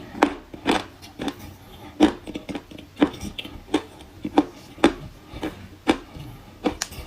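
Crunchy chewing of dry kaolin clay chalk: sharp crunches about twice a second.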